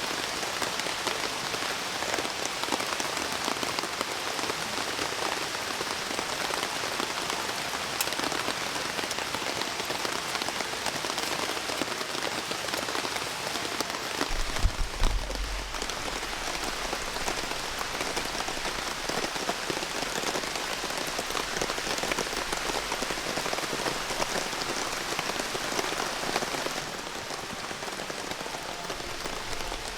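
Steady rain falling, an even patter throughout. About halfway through there is a brief louder low thump, followed by a low rumble underneath the rain.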